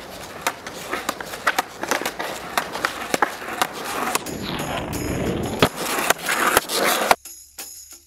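Skateboard doing tick-tacks on smooth pavement: the front wheels clack down each time the nose swings and lands, about two clacks a second, over the hiss of the wheels rolling, which grows louder partway through. The board sound cuts off suddenly about seven seconds in.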